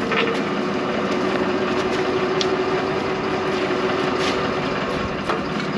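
New Holland tractor engine idling steadily, with a few light clicks of hitch hardware.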